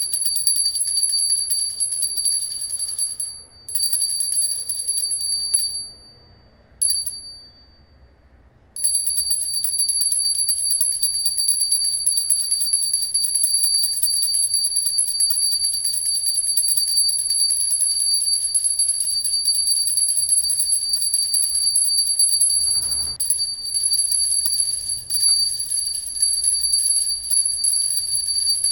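Puja bell (ghanti) rung rapidly and continuously, a high, steady ring. It pauses briefly about three and a half seconds in, and again for about three seconds from about six seconds in, broken by one short ring, then rings on.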